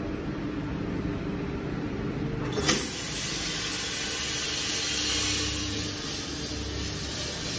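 Green coffee beans pouring from the hopper into a drum coffee roaster preheated to 180 °C (charging the roast): a steady rushing noise over the roaster's steady motor hum, with one sharp click about two and a half seconds in.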